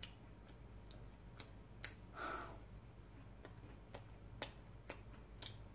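Faint sharp clicks, roughly two a second, with a short soft breathy sound about two seconds in.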